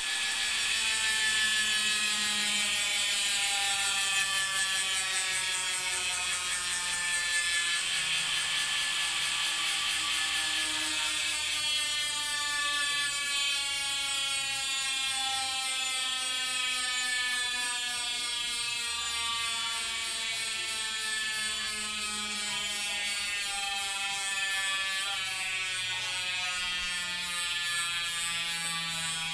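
Chris King bicycle hub freewheeling: its ratchet buzzes steadily as the wheel coasts. The pitch falls slowly as the wheel slows, jumps back up about twelve seconds in as the wheel is spun again, then falls away once more.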